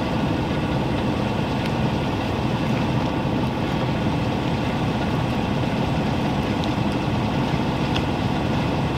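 Steady low engine hum, like a vehicle idling, with a few faint ticks over it.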